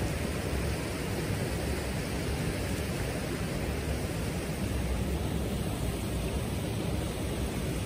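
Steady rush of flowing water, an even hiss with no distinct splashes.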